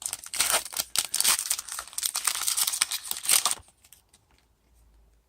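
Crinkling and tearing of a trading card pack's wrapper as it is ripped open and handled: dense crackling for about three and a half seconds, then it stops.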